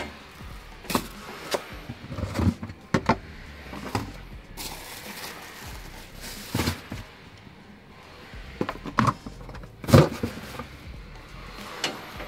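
Handling noises of rubbish being thrown out: a plastic carrier bag rustling and a series of irregular knocks and clanks from a plastic bin lid and a metal hatch door, the loudest knock about ten seconds in.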